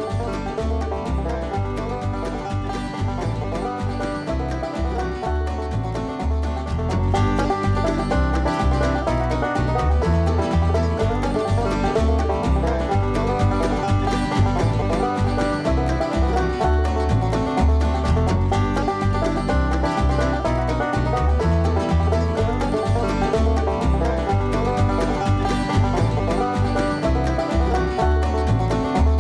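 Bluegrass music: banjo and other plucked strings over a steady bass beat, growing a little louder about seven seconds in.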